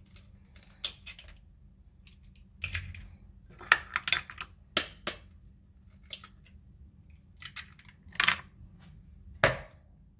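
Raw eggs cracked one after another, their shells tapping and cracking, and dropped into a plastic mixing bowl. There is a scattered run of sharp cracks and clicks, several at a time.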